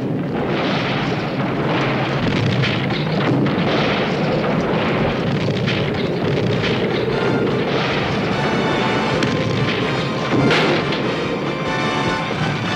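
Cartoon sound effects of rock crumbling and collapsing, a continuous rumble with booms, under background music that grows more tuneful about halfway through. A sharper crash or blast stands out about ten and a half seconds in.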